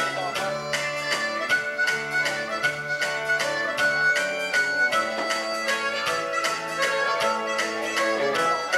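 Live band music: a harmonica played lead over electric guitars and a steady beat.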